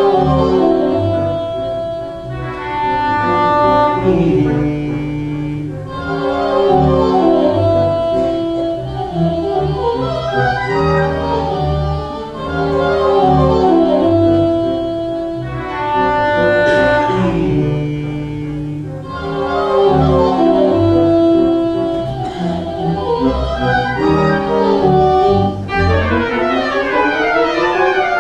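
Wurlitzer theatre pipe organ playing a tune in full, sustained chords with a moving melody line, ending in a rising run near the end.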